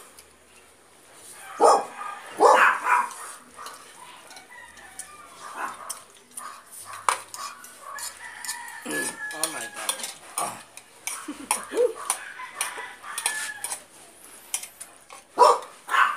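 Animal calls: two loud ones about two seconds in, a long held one near the middle, and fainter ones later. Short clinks of forks on bowls and plates run among them.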